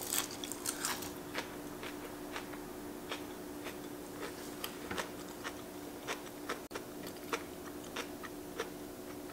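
A person chewing a mouthful of food close to the microphone, with irregular soft crunches and mouth clicks about once or twice a second.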